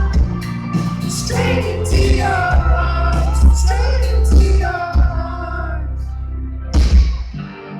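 Live pop-folk band playing loud in a concert hall, with a heavy bass line and a lead vocal over it. Near the end comes a loud drum hit, and then the band drops back.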